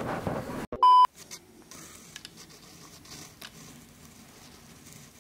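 A short, loud beep tone, a steady pitch of about 1 kHz, lasting about a third of a second about a second in. It is edited in right after the surrounding noise cuts off abruptly. Faint clicks and quiet room sound follow.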